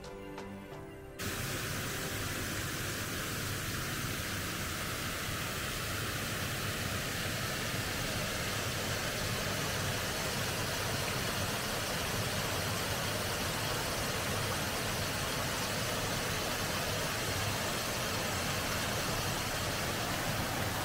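Water pouring over a small stone weir in a stream, a steady rushing. Background music cuts off about a second in.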